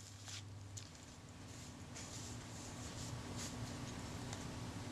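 Faint handling noise of small parts and tools being moved about on a workbench, with a few soft taps and rustles over a faint steady hum.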